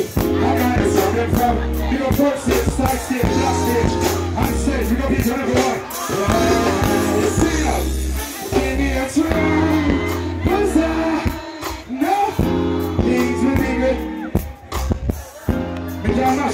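Live reggae band playing a steady bass-heavy groove, with a man singing over it through the stage sound system.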